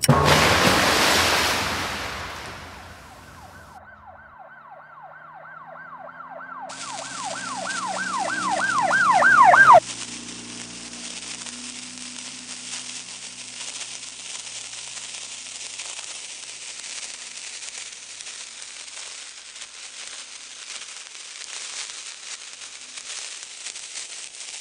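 Experimental electronic noise: a loud burst of noise that fades over a couple of seconds. It gives way to a siren-like warbling tone that swells louder over low droning notes and cuts off suddenly about ten seconds in. From there on there is only steady crackling static hiss.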